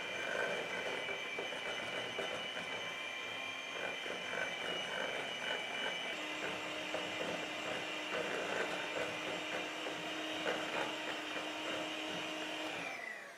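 Electric hand mixer running steadily, its beaters whipping mashed banana in a stainless steel bowl with a constant motor whine. The motor winds down and stops just before the end.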